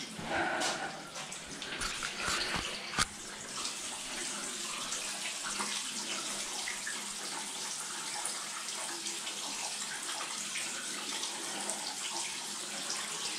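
A few knocks and clicks, the sharpest about three seconds in, then a steady rush of running water.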